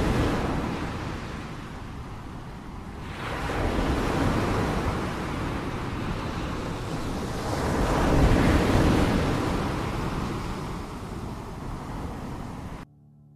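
Ocean surf breaking on a beach: a steady wash of noise that swells and eases with each wave, loudest about eight seconds in, then cuts off suddenly near the end.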